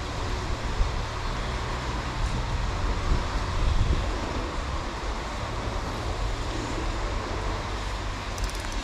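Strong wind buffeting the microphone: a steady low rumble with an even hiss over it.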